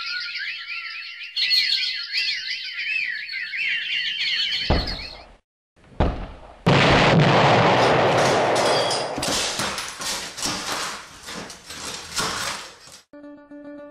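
Birds chirping rapidly in a dense chorus, then two heavy thumps and a loud crash with crackling debris that dies away over several seconds. A plucked guitar starts near the end.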